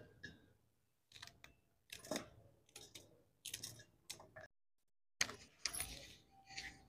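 Small kitchen knife slicing green chillies over a steel plate: a few faint, crisp cuts and taps spaced apart. After a short silent break about five seconds in, rustling and handling noises.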